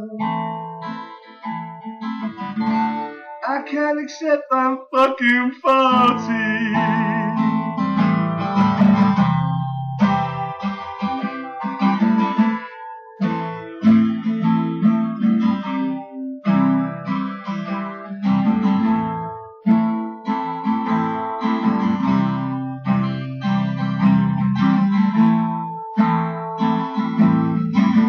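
Live band music, poorly recorded: a guitar-led pub rock song with chords strummed in a steady rhythm, in an instrumental stretch of the song.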